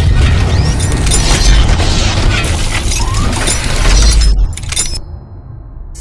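Loud music with heavy bass and crashing, shattering sound effects, like a channel intro sting. It drops away about five seconds in.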